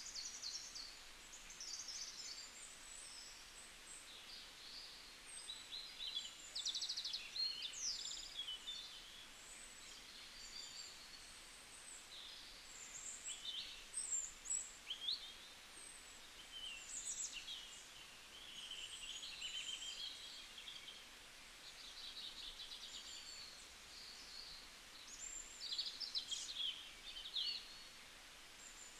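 Several songbirds chirping and trilling in high, short phrases at irregular intervals, over a faint steady background hiss.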